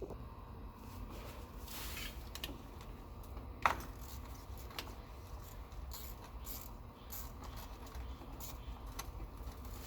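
Scattered light clicks and taps from hands working tools and parts in a car engine bay, with one sharper click a little under four seconds in, over a low steady background rumble.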